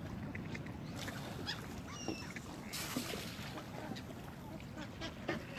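Ducks and gulls on a pond, with a short high bird call about two seconds in, over a steady low rumble of outdoor background noise.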